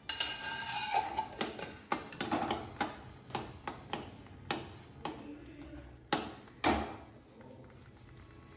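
Steel spoon tapping and scraping against a stainless steel pan while kesari is stirred: a run of clinks about two a second, the first one ringing briefly, the loudest pair a little after six seconds in, stopping about seven seconds in.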